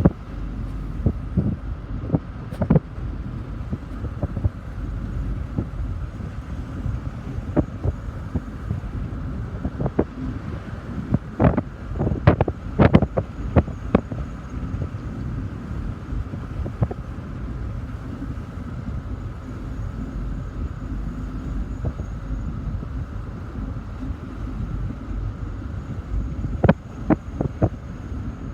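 Outdoor field recording with a steady low rumble and wind buffeting the microphone, broken by scattered sharp knocks and clicks, a cluster of them about twelve seconds in and a few more near the end.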